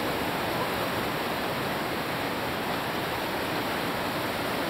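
Whitewater rapid rushing steadily, an even roar of churning river water with no letup.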